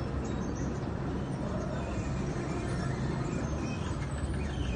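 Caterpillar 320 hydraulic excavator's diesel engine running steadily as the machine works its arm and bucket.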